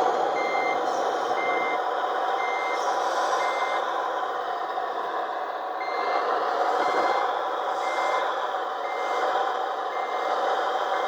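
The RC bulldozer model's sound unit playing a reversing alarm: short beeps about one and a half times a second, stopping for about two seconds in the middle. Under the beeps is a steady truck-engine drone from the same sound unit.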